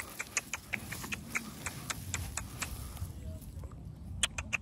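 Small stones clicking and ticking as a bare hand scrapes through loose gravelly soil and lifts out a flat rock: a quick run of sharp clicks, about five a second, that thins out after about three seconds, with a few more clicks near the end.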